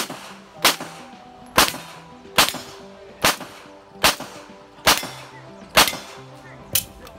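Pistol shots fired one at a time at a steady pace, about nine in all, roughly one shot every 0.9 seconds, each with a short echo.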